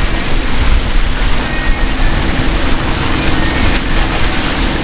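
Strong wind buffeting the microphone over the hiss of surf and chop, with the drone of a center-console boat's outboard motor running at speed through the waves.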